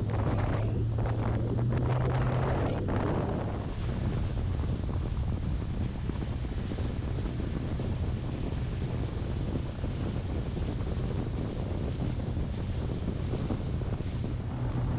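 A small boat's motor running steadily under way, a low, even hum, with wind buffeting the microphone and water noise; the rush is rougher for the first few seconds.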